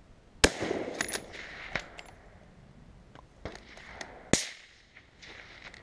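.338 Lapua Magnum rifle fired twice, about four seconds apart, the first shot the louder, with several lighter clicks between the shots.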